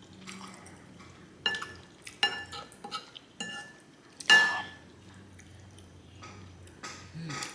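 Metal cutlery clinking and scraping against a plate or bowl of spaghetti, about half a dozen sharp clinks with a short ring, the loudest about four seconds in.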